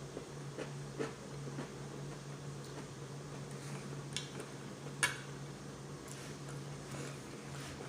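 Cutlery clicking against a plate during a meal: a few sharp, separate clicks, the loudest about five seconds in, over a steady low hum.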